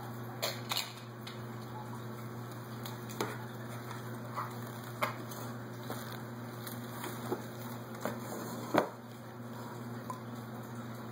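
Plastic play-food pieces clicking and tapping against each other and a tabletop: scattered light clicks at irregular times with one sharper knock late on, over a steady low hum.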